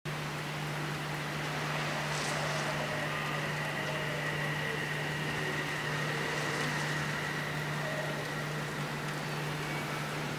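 Steady ambience of an elevated railway line in the rain: an even hiss with a constant low hum and a faint high steady tone, with no train passing.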